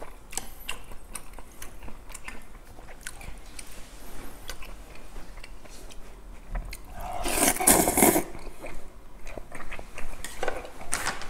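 Eating cold buckwheat naengmyeon noodles: small chewing and chopstick clicks against a steel bowl, then a loud slurp of noodles lasting over a second about seven seconds in, and a shorter one near the end.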